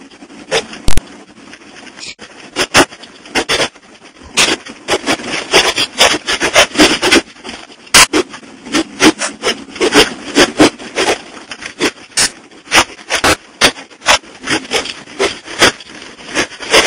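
Irregular knocks and rattles, often several a second, over a steady low rumble, heard inside the cab of a truck jolting along a rough dirt track.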